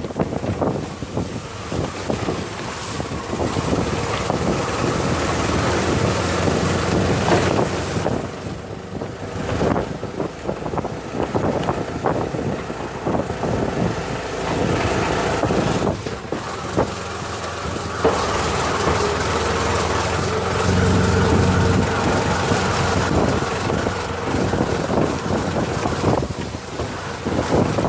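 A road vehicle running steadily while travelling, with frequent rattles and knocks from the ride.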